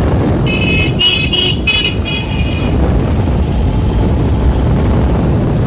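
Low steady wind and road rumble of a moving motorbike, with a vehicle horn tooting a quick series of short high blasts from about half a second to two and a half seconds in.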